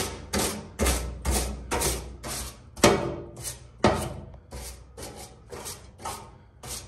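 Stiff plastic brush scrubbing dirt off the top of a steel fuel tank in repeated strokes, about two to three a second, over background music with a deep bass.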